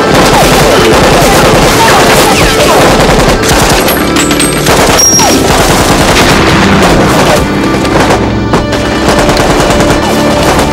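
Loud, continuous machine-gun fire mixed with rifle shots in a film battle, with film music underneath.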